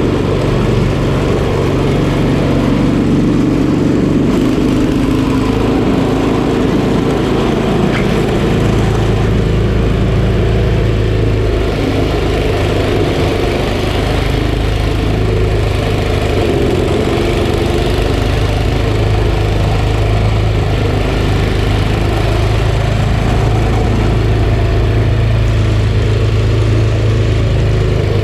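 Snowblower's small engine running steadily at a constant speed.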